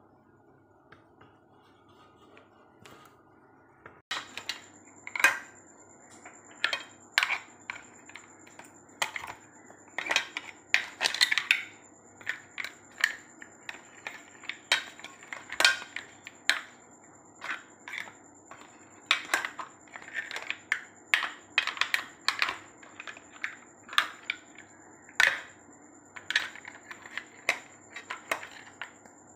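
Cooked mussel shells clinking against each other and a stainless steel bowl as the dish is handled: irregular sharp clicks, several a second, starting about four seconds in after a near-quiet start.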